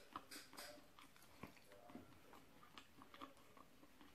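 Faint chewing and mouth sounds of someone eating grilled meat off a sate skewer, with scattered soft clicks.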